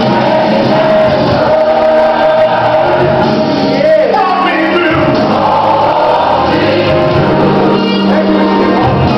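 Gospel song with a choir singing over instrumental backing, loud and continuous.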